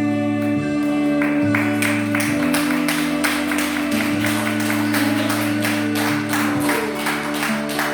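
Instrumental music with sustained chords and a moving bass line, joined by a steady beat from about a second in.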